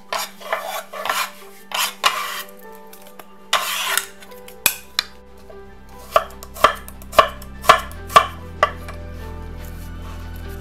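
Chef's knife on a wooden cutting board: first rustling and scraping as onion skin is peeled and swept aside, then about six crisp chops, about two a second, as the onion is cut. Quiet background music plays underneath.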